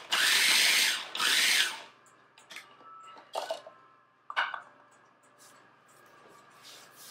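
Small electric food processor pulsed twice, each whirring burst about a second long, as it chops fresh herbs. A few short knocks follow a couple of seconds later.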